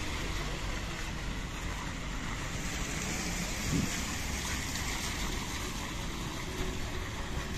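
Steady street noise of car tyres hissing on a wet road as traffic passes, with a short low thud a little past the middle.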